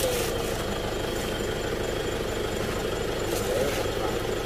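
Vehicle engine idling steadily, with a faint crinkle of plastic bags being handled now and then.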